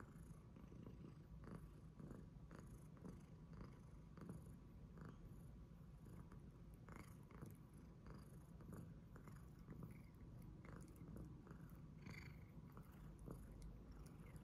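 Domestic tabby cat purring faintly and steadily as it is stroked under the chin, with scattered soft clicks.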